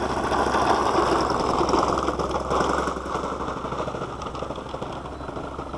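Thunder Tiger 91FS four-stroke glow engine of a model P-51 Mustang running with a rapid, even firing beat. It is a little louder for the first few seconds, then eases off. The owner wants to lean the mixture out a couple of clicks because he feels it is not making full power.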